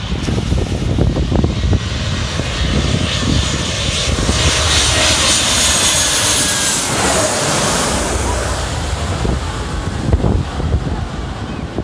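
Airliner on final approach passing low overhead, its engine roar swelling to a peak about five to seven seconds in with a falling whine, then fading as it goes away toward the runway.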